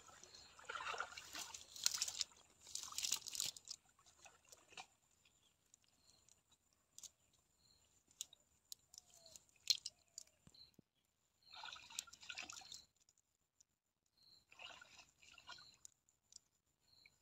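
Water splashing and dripping in short spells, with scattered small clicks and long quiet gaps between.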